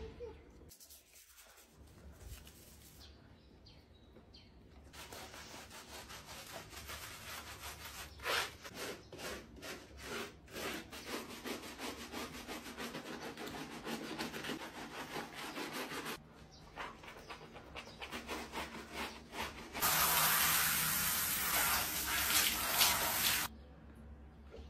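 Wet rubbing and scrubbing of a silicone bath brush working shampoo lather into a dog's wet coat, a dense run of quick strokes. Near the end a louder steady hiss lasts about three seconds.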